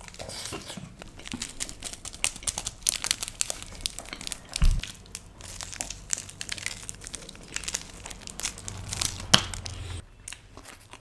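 Close-miked eating: two people chewing pizza and deliberately crunching the crust right at the microphone, a dense run of crisp crackles with a low thump about four and a half seconds in and a sharp crack near nine seconds; it quiets near the end.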